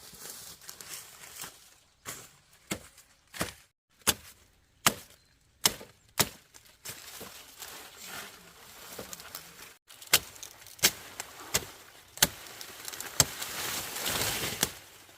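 A blade chopping into sugarcane stalks in two runs of sharp strikes, about one every three-quarters of a second, with a pause between the runs. A rustling noise swells near the end.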